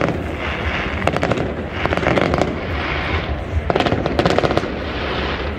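Fireworks display: shells bursting in dense crackling, with rapid flurries of sharp pops over a continuous low rumble.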